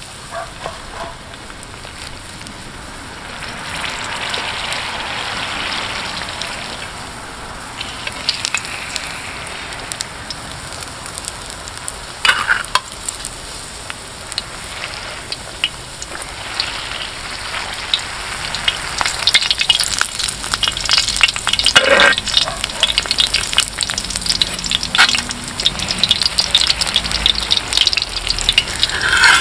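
Seed hotteok frying in oil on a cast-iron pot-lid griddle: a steady sizzle with crackling spatter. It grows louder in the second half as more dough is pressed flat into the hot oil. A few sharper clicks stand out.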